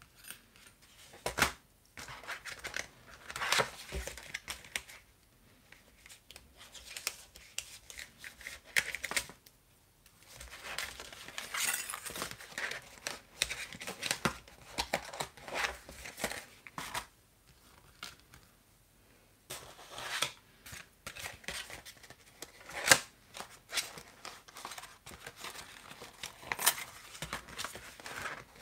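Clear plastic sleeves and craft-die packaging being handled and packed away, rustling and crinkling, with many small irregular clicks and taps.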